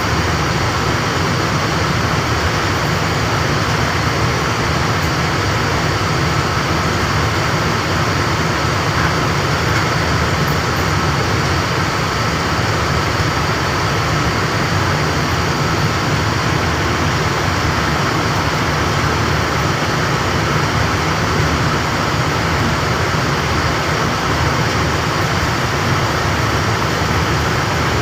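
Air-conditioning plant machinery running steadily: a loud, even mechanical drone with a faint high tone held over it.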